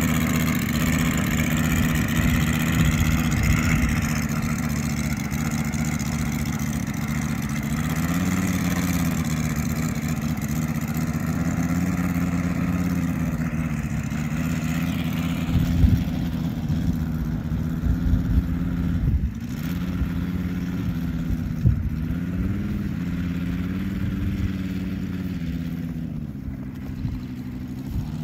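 Moki S180 five-cylinder radial engine of a large RC F4U Corsair running at low taxi throttle, its pitch swelling and dipping a little with small throttle changes. Wind buffets the microphone now and then in the second half.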